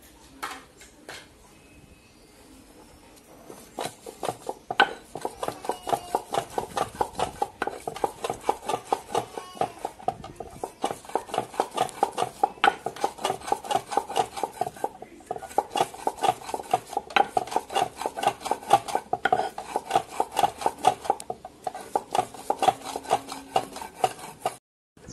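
Cylindrical hand stone rolled back and forth over cotton seeds on a flat native grinding stone: stone-on-stone grinding strokes in a rapid, even rhythm. The strokes start about four seconds in and stop briefly a few times.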